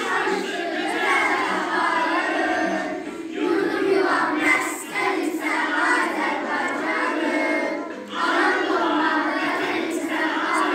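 A choir of young children singing together in unison, with a brief break between phrases about eight seconds in.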